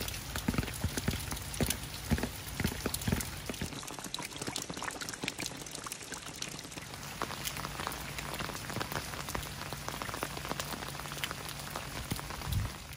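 Heavy rain falling steadily, with many separate drops splashing close by.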